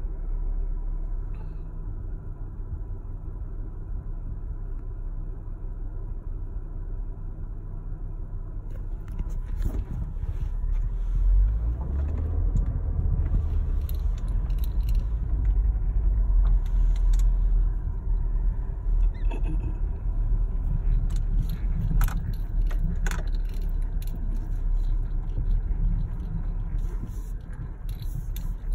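Car cabin noise while driving: a steady low rumble from the engine and tyres, heaviest in the middle stretch, with light rattles and clicks coming in from about a third of the way through.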